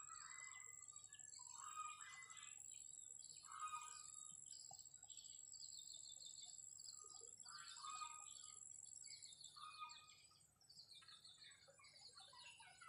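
Faint birdsong: repeated short calls and quick trills from several birds, over a steady high-pitched insect whine.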